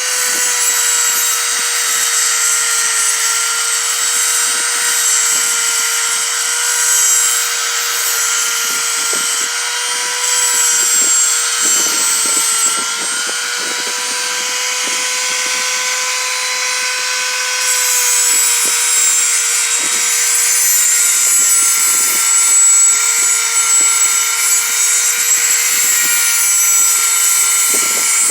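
Power tool running with a steady high whine as its grinding wheel grinds a steel lock-pick blank, the gritty hiss of the grinding swelling and easing as the metal is pressed to the wheel.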